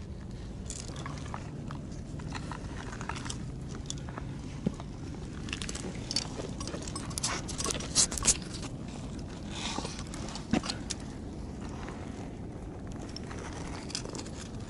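A climber moving on rock and handling gear: scattered clicks, scrapes and crunches, with a few sharper knocks near the middle, over a steady low rumble.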